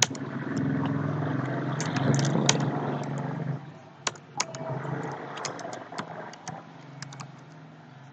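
Computer keyboard keys clicking in short scattered runs of keystrokes, over a low steady hum that is louder for the first three seconds or so and then fades down.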